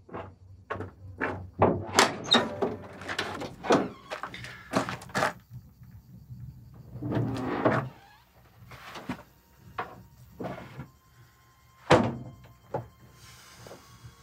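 Metal rear door of a van: a quick series of knocks and clunks on it, then a longer scraping noise as it swings open about seven seconds in, and a single loud thud near the end.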